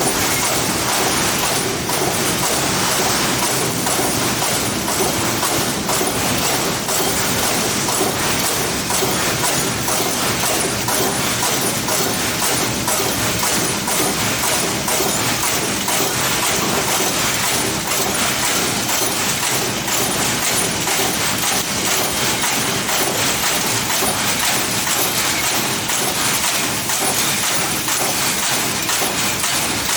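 Steel fabrication workshop noise: machinery running steadily under a constant clatter of metal knocks and clanks, with a faint high whine.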